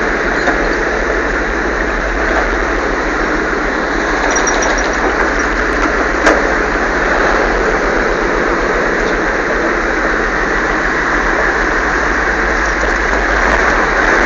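Sexton self-propelled gun's Continental nine-cylinder radial petrol engine running loudly and steadily, heard from on board as the vehicle drives slowly.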